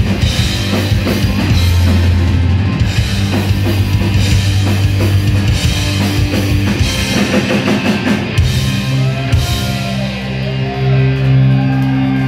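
Punk rock band playing live, with pounding drums and distorted electric guitars. About eight seconds in, the drumming stops and held chords ring on as the song ends.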